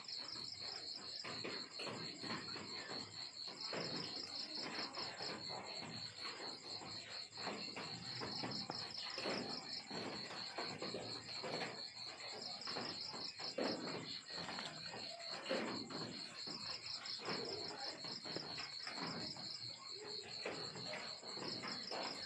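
Crickets chirping in a steady, fast-pulsing high trill, over many irregular soft clicks and rustles.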